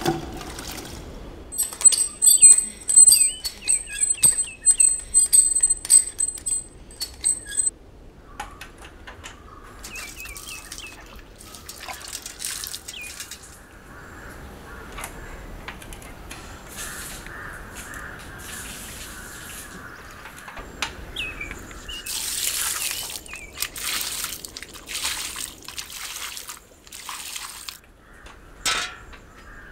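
A bird calling over and over with high, quick chirps for the first several seconds. Later, water splashes and pours in a few loud bursts at an open well as water drawn up on the rope is handled and poured.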